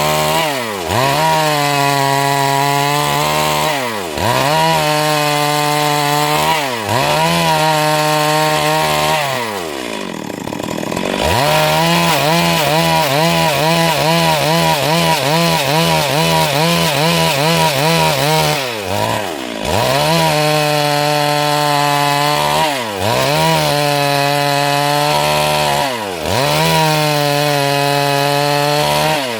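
Stihl MS 382 two-stroke chainsaw running at high revs while cutting a Siris log into boards. Its pitch dips and recovers every few seconds, with a longer, slower dip about ten seconds in.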